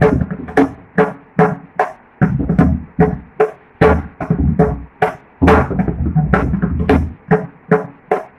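Solo mridangam played with the hands in Adi tala: a fast, continuous run of strokes, ringing tuned strokes on the right head mixed with deep bass strokes from the left head.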